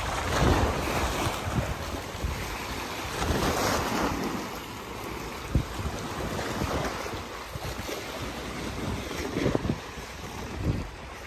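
Small lagoon waves washing and breaking against a rock-lined seawall, swelling every few seconds, with wind buffeting the microphone as a low rumble.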